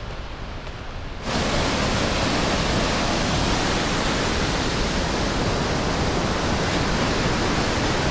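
White-water mountain torrent rushing, a loud steady noise of water that sets in abruptly about a second in, after a quieter stretch.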